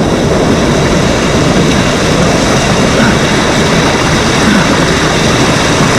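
Mountain stream water rushing over rocks close to the microphone: a loud, steady roar.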